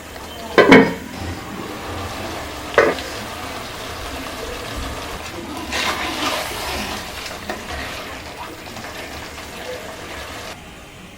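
Cooking in a pan: two sharp knocks of a utensil against the pan in the first few seconds, then a swell of frying noise around the middle.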